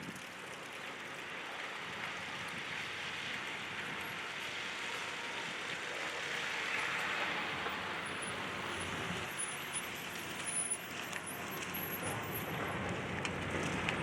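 Road traffic noise: a steady wash of passing vehicles that swells to a peak about seven seconds in.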